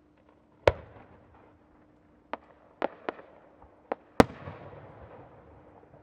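Aerial firework shells bursting: six sharp bangs, loud ones about a second in and a little after four seconds, with smaller reports between, each trailing off in echoes.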